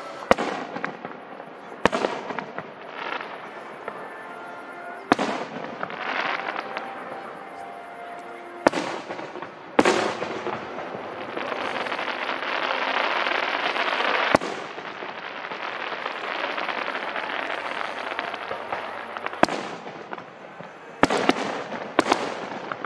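Aerial fireworks shells bursting overhead: about ten sharp booms at irregular gaps of one to five seconds, with a longer noisy stretch of crackle from about 10 to 14 seconds in.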